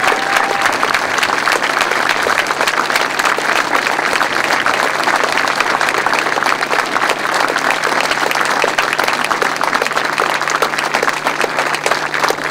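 Crowd applauding steadily, a dense mass of hand claps, with a faint steady low hum underneath.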